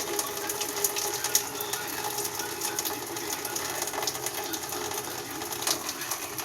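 A steady mechanical hum with light scattered clinks and clicks of cookware.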